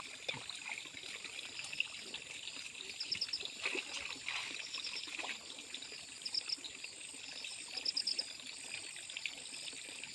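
Stream water trickling and sloshing faintly around a person wading and groping in the shallow water, with several short, high, pulsed chirps every second or two.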